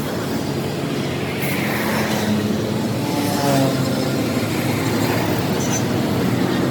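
A vehicle engine running steadily among road traffic, with a tone falling in pitch about a second and a half in and a brief higher tone shortly after the middle.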